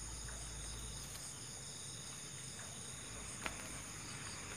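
Chorus of night insects: a steady high trilling at several pitches at once, with a single sharp click about three and a half seconds in.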